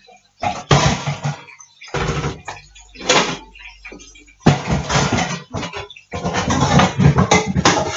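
Rummaging through a low kitchen cupboard: kitchenware clattering and rattling in several uneven spells, starting about half a second in.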